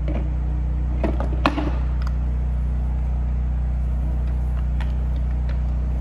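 A toothed concrete prep tool being lined up and twisted onto a floor grinder's drive plate: two sharp knocks about a second in, then a few faint clicks of the parts seating. A steady low hum runs under it.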